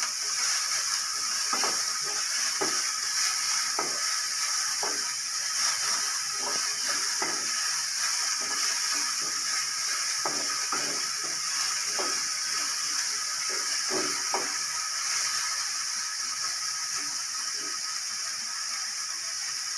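Chopped onions sizzling in hot oil in a metal kadai, with a steady hiss. Irregular scraping strokes of a wooden spatula stirring them stop about three quarters of the way through, leaving only the sizzle.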